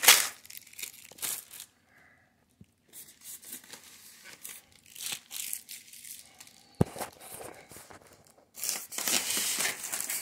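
Plastic packing bags and wrap crinkling and rustling in bursts as turntable packaging and styrofoam inserts are handled, with a short lull about two seconds in, a sharp knock about seven seconds in, and louder crinkling near the end.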